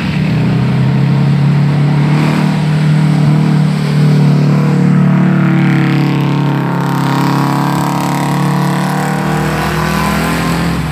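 Heavy diesel truck engine running hard under load as it pulls up a steep grade. It is a loud, steady engine drone that swells slightly midway as the truck comes closer.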